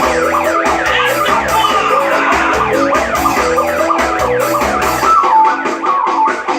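Electronic keyboard playing an upbeat tune over a steady drum-and-bass backing, the lead voice sliding up and down in pitch.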